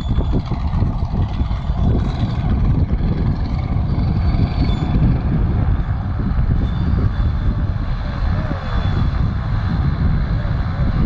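Antonov An-2 biplane's nine-cylinder radial engine running steadily as the aircraft rolls along the grass after landing, growing louder as it comes closer.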